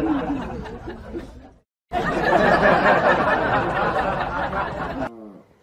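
People laughing and chattering, breaking off briefly about one and a half seconds in. A short falling whine comes near the end.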